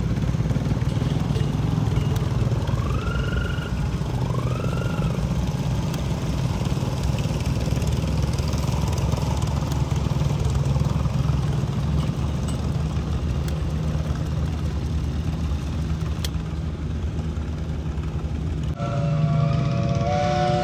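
Old tractor engines running steadily, with two short rising whistles a few seconds in. Near the end the sound cuts and a steam whistle sounds a steady chord of several tones.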